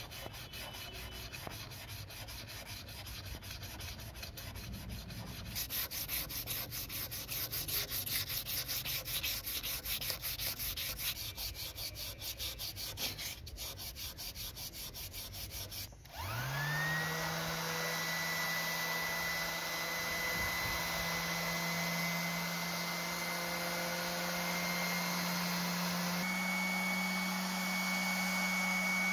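Sandpaper rubbed by hand in quick back-and-forth strokes over the bare metal handles of a pair of pliers. About halfway through an electric orbital sheet sander switches on, its motor spinning up with a rising whine and settling into a steady, louder hum, which steps up slightly in pitch near the end.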